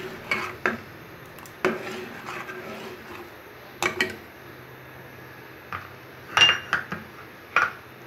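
Steel spoon stirring a thick, creamy milk mixture in a stainless steel pot, clinking against the pot's side and rim several times. The sharpest clinks come about six and a half and seven and a half seconds in.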